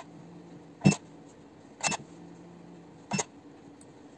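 Handheld-pen battery spot welder firing weld pulses onto metal connecting strip on BAK lithium-ion cells: three sharp cracks about a second apart, over a steady low hum.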